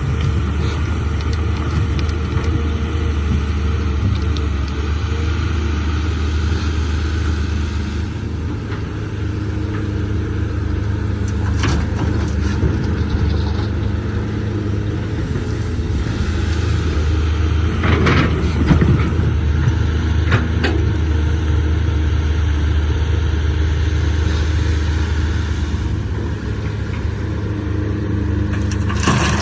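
Caterpillar 320C excavator's diesel engine running steadily under working load, dipping slightly about eight seconds in and picking up again, with a few sharp clanks of the bucket striking hard rock.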